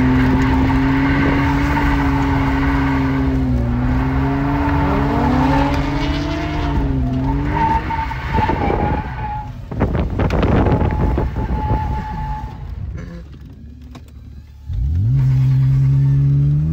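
Car engine held at high revs while the tyres squeal and scrub through a drift, heard from inside the cabin. About thirteen seconds in, the engine note falls away almost to nothing as the car spins. It then revs sharply back up near the end.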